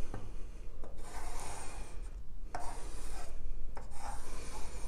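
Pencil lead of a drawing compass scratching across paper as the compass is swung round to draw a circle: a dry, continuous rasping scrape with a few short breaks.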